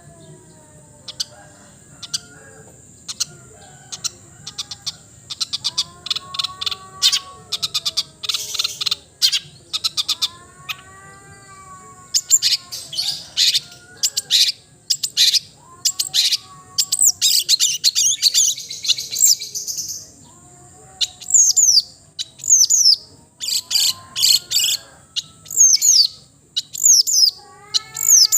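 Long-tailed shrike (cendet) singing a varied mimicking song: rapid harsh chatter and clicks, arched whistled notes, and in the second half a run of quick falling high whistles repeated again and again. A steady high whine runs underneath.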